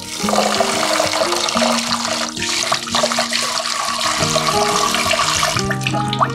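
Tap water pouring and splashing into a stainless steel bowl of rice as the rice is washed by hand; the flow cuts off sharply near the end. Soft background music plays underneath.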